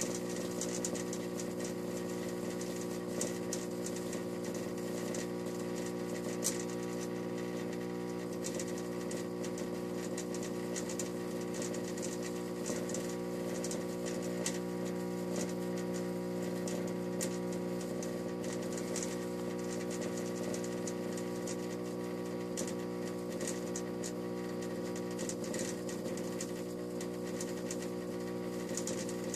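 Fluorescent fixture running an end-of-life Sylvania F96T12/SS 8-foot tube, giving a steady buzzing hum made of many tones, with faint irregular crackles throughout.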